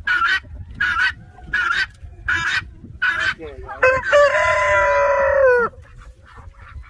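Waterfowl give a run of five short, harsh honks, then a rooster crows once. The crow is the loudest sound: one long call of about two seconds that drops in pitch at the end.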